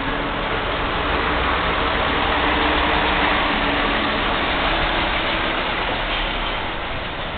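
Diesel engine of a cab-over heavy truck running at low speed as it turns and passes close by, growing louder toward the middle and easing near the end.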